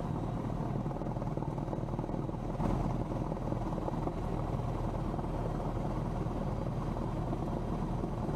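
1973 Cessna 172M's four-cylinder Lycoming piston engine and propeller running steadily at low power while the plane moves on the ground, heard from inside the cabin, with a slight swell about three seconds in.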